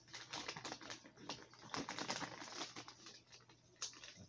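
Plastic soft-plastic bait packages crinkling and crackling as they are handled, with one bag being worked open: a fast, irregular run of small crackles.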